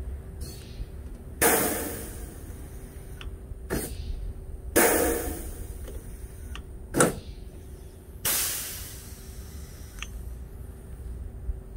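Pneumatic pop-rivet gun setting 3/16-inch rivets: five sharp pops a second or more apart, most followed by a short hiss of exhausting air.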